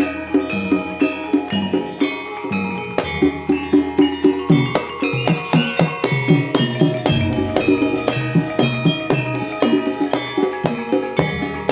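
Jaranan gamelan music: drums and ringing tuned metal percussion play a fast, even rhythm over deep, sustained low gong-like notes.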